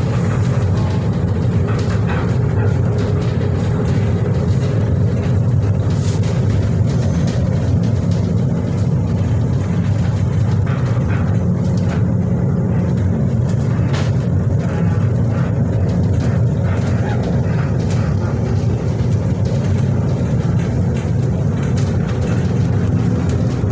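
Inside a Miami Metromover rubber-tyred people-mover car running along its elevated guideway: a steady low rumble from the tyres and running gear, with a few light clicks.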